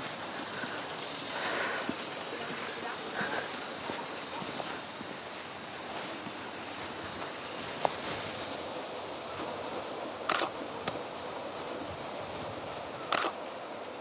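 Outdoor village ambience: a steady faint hiss with a soft high shimmer, broken by a few short sharp clicks, two of them at about ten and thirteen seconds in.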